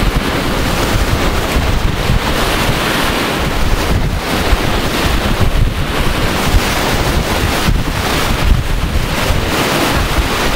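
Wind buffeting the microphone in a loud, continuous low rumble, with surf breaking on the shore.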